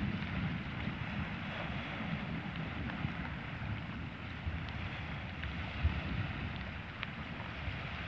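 Gusty wind buffeting the microphone, a steady rumbling hiss, with a faint wash of sea water behind it.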